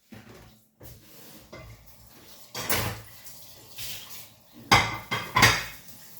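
Pots, dishes and cutlery clattering and clanking: a few sharp clanks from about halfway in, the two loudest near the end.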